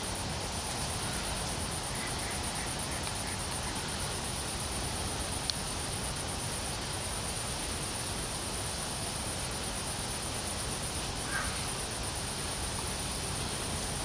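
Steady high-pitched chirring of crickets on a warm evening, with a constant low background hiss beneath it; a faint click about five and a half seconds in.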